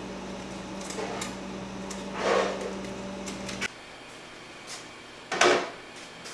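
Scattered knocks and clatters of restaurant kitchenware, over a steady low hum that cuts off suddenly a little past halfway.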